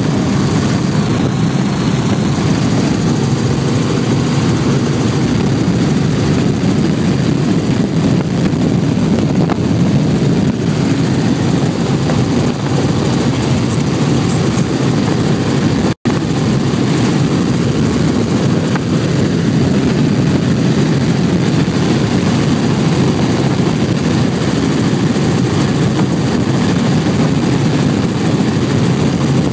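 Light helicopter's engine and rotor noise heard inside the cabin: a loud, steady low drone, broken by a split-second dropout about halfway through.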